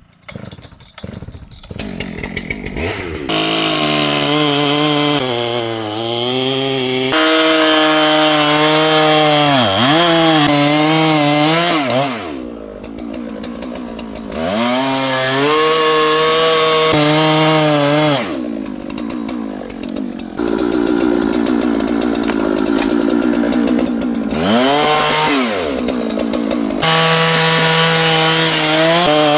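Husqvarna two-stroke chainsaw coming up to speed over the first few seconds, then running at high revs while cutting a tree. The pitch dips as it bites, and twice it drops back to idle before revving up again.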